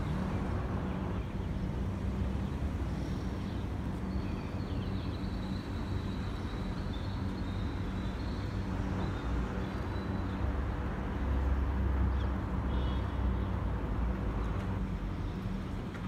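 Steady low rumble of traffic and engine hum, swelling a little about two-thirds of the way through, with a few faint high chirps over it.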